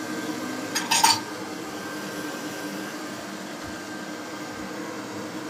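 Vestel Tarçın S stand mixer running steadily, its wire whisk beating egg-and-sugar batter in the bowl, with a brief clink about a second in.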